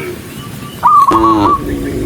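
Cattle lowing: a short, pitched moo about a second in, overlapping a high warbling, stuttering whistle-like call.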